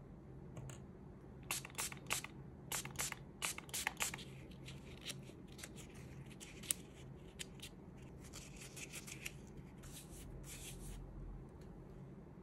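Textured nonwoven nail wipe rubbed over the nails and palm to wipe off nail remover: crisp scratchy rustles, densest in the first few seconds, then lighter intermittent rubbing and a short steady hiss near the end.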